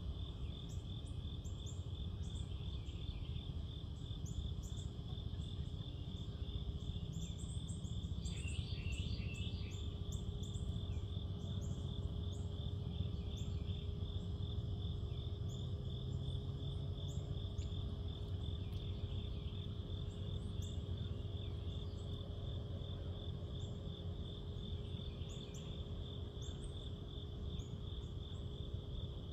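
Crickets chirping in a steady, rapid pulsing trill, with other insects chirping now and then above it. A low, steady rumble and hum run underneath.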